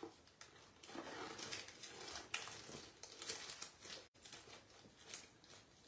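Craft supplies being rummaged through by hand in a search for a packet of rhinestones: soft, irregular crinkling, rustling and small taps.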